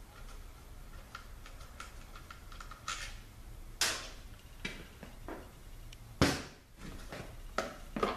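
Hand tools and metal transmission parts being handled: a run of faint, irregular clicks, then sharper metallic knocks about three, four and six seconds in, the one near six seconds loudest.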